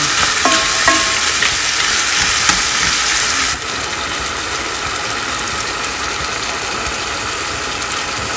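Shrimp, chicken and onion sizzling in a frying pan, with some stirring in the first second or so. From about three and a half seconds in, the sizzle carries on steady and slightly quieter.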